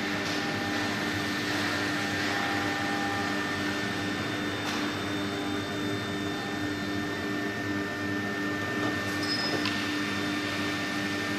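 CNC engraving machine's stepper motor drive running steadily as an axis is jogged, a constant whine over a hiss that stops near the end.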